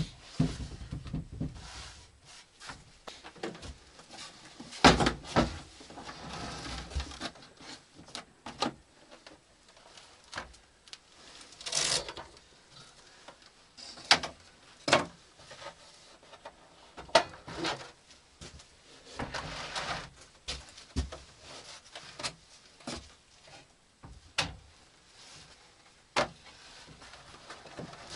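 Scattered knocks, clunks and rustling as a portable gas grill is unpacked from its plastic carrying case and set up on a wooden table, with the loudest thump about five seconds in.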